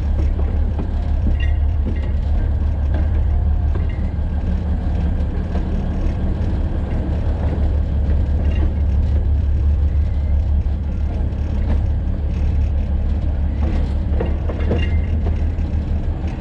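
Alishan Forest Railway narrow-gauge diesel locomotive running steadily as it rolls along the track, a continuous low engine hum, with a few clicks and knocks near the end.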